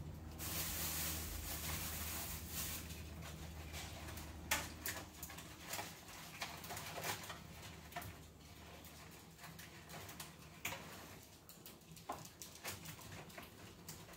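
Scattered light clicks and knocks of kitchen things being handled, over a faint steady low hum, with a soft hiss in the first couple of seconds.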